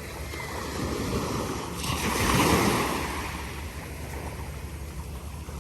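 Ocean surf: a wave breaking and washing up the shore, swelling to its loudest about two seconds in and then easing off.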